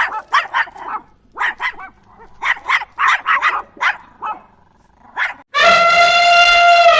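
An animal giving short, sharp barking yelps in quick runs of several calls. About five and a half seconds in, a long, steady horn-like call starts and falls in pitch as it ends.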